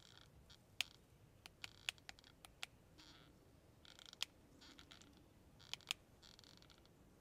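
Near silence with scattered faint sharp clicks and several short, scratchy rustles.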